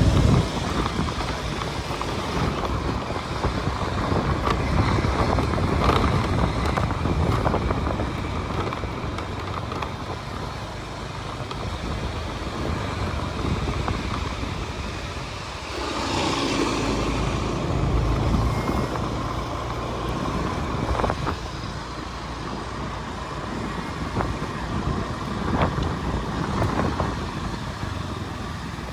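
Steady rushing of flowing river water, with a low rumble that swells and fades.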